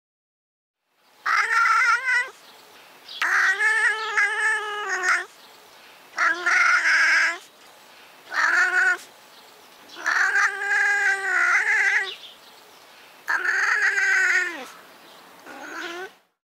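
European wildcat meowing: seven drawn-out calls with short gaps between them, a few lasting about two seconds, ending with a shorter, quieter call.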